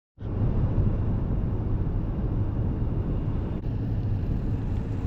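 Steady low rumble of a car driving on the road, starting abruptly just after the start.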